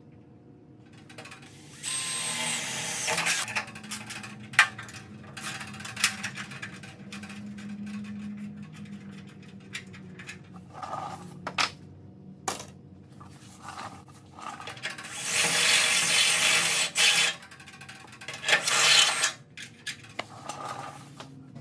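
Cordless drill boring through sheet-metal radiator core support, in short runs about two seconds in and again twice near the end. Between them come sharp metallic clicks and handling knocks.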